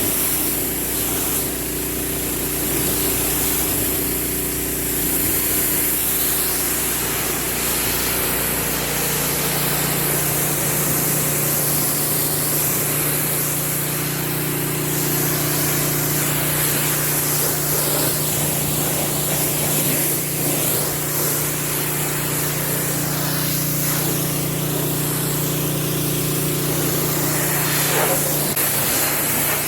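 Husqvarna PW3200 pressure washer running steadily while its wand, fitted with a 40-degree tip, sprays water in a continuous hiss to rinse foam off a truck. The engine hum shifts in pitch about nine seconds in.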